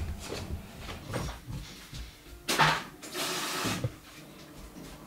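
Footsteps on a wooden floor moving away, then a sudden knock about two and a half seconds in followed by a short rush of noise lasting under a second.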